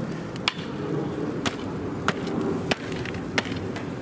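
Five sharp knocks spaced unevenly about half a second to a second apart, over a steady background noise.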